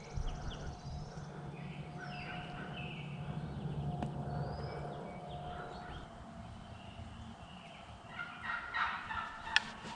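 Wild turkey tom gobbling, with small songbirds calling in the background.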